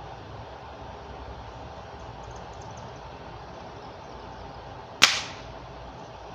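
A Crosman F4 NP nitro-piston break-barrel air rifle firing a .177 pellet, once, about five seconds in: a single sharp crack that dies away within a quarter second. A steady background hiss runs under it.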